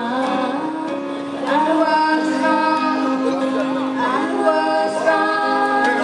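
A woman singing live over an acoustic guitar, holding long notes.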